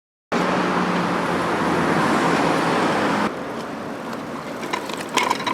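Steady road traffic noise with a low engine hum, dropping suddenly to a quieter background a little over three seconds in.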